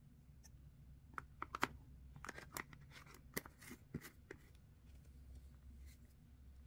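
Plastic screw-top lid being set on a plastic slime tub and twisted shut: a run of faint clicks and scrapes, sharpest in the middle, then stops.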